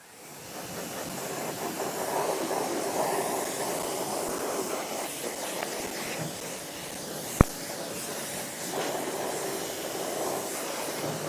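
Stihl REA 60 Plus battery pressure washer spraying a jet of water onto a dirty surface: a steady hiss of spray that builds over the first couple of seconds and holds. One sharp click comes about seven seconds in.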